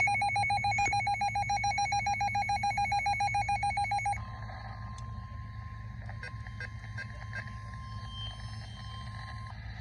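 Emergency weather alert on a weather radio announcing a marine warning. A loud, fast-trilling electronic alarm plays for about four seconds, then a fainter steady single tone, the weather-radio warning tone, holds until just before the end.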